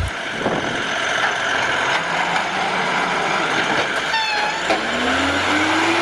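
Automated side-loader garbage truck working at the kerb: steady engine and hydraulic noise as its arm lifts and empties a cart. A short high tone sounds about four seconds in, and a whine rises steadily in pitch near the end as the truck moves off.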